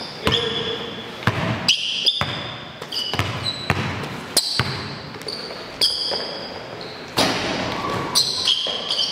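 Basketball bouncing on a hard court at an uneven pace, with short high-pitched sneaker squeaks as players cut and stop during live one-on-one play.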